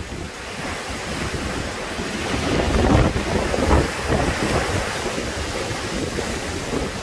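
Strong gusty thunderstorm wind blowing through the trees and buffeting the microphone, with a gust swelling about three seconds in.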